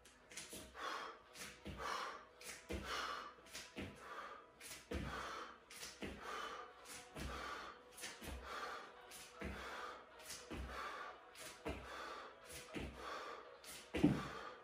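A man's hard, rhythmic breathing, short puffs about twice a second, with thuds of bare feet landing on a yoga mat over a wooden floor as he does repeated lunges. One heavier thud comes near the end.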